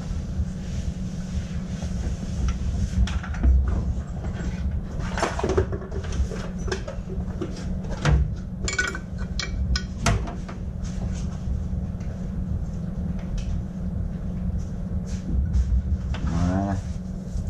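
Metal two-stroke engine parts being handled and fitted together on a workbench: scattered clicks and knocks over a steady low workshop hum, with a short rising pitched sound near the end.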